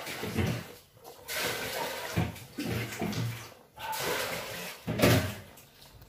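Water sloshing and splashing in a basin as a batch of manla is swished around by hand to wash them, in several bursts of a second or two with short pauses between.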